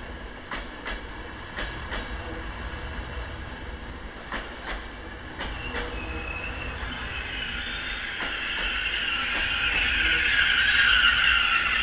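Double-deck regional passenger train rolling past on the platform track, its wheels clicking over a rail joint in quick pairs, one pair per bogie. From about halfway a high-pitched noise builds and grows loud as the electric locomotive at the rear of the push-pull train draws near.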